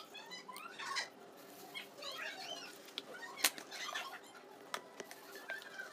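Close-miked chewing and crunching of a slate pencil, with a sharp crunch about three and a half seconds in and fainter clicks around it. Short high chirps run through it.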